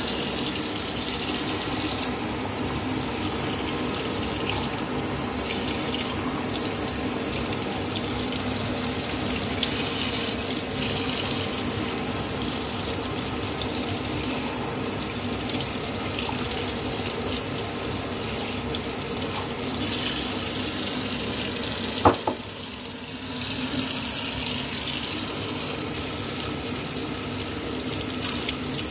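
Kitchen tap running steadily into a stainless steel sink, the stream splashing off a mug held under it. One sharp knock about three quarters of the way through.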